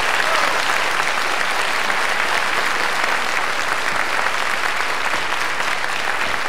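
Audience applauding steadily, a dense, even clapping at the close of the performance.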